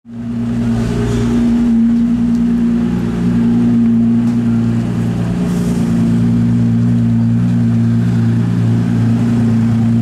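Brill Steel-tuned 1750 hp Nissan GT-R's twin-turbo V6 idling steadily, fading in over the first half-second.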